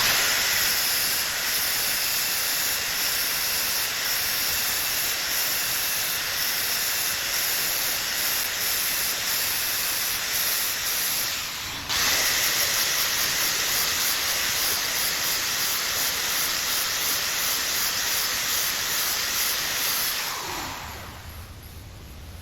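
TIG welding arc on stainless steel giving a steady hiss. It cuts out for a moment about halfway through, is struck again, and dies away a couple of seconds before the end.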